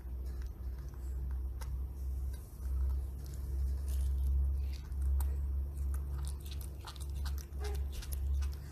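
A baby macaque biting into and chewing soft orange fruit, with irregular smacking and crunching clicks, over a low rumble that swells and fades.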